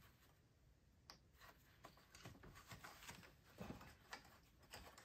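Faint scattered clicks and handling noise from hands working the AC compressor's electrical connector and wiring loose.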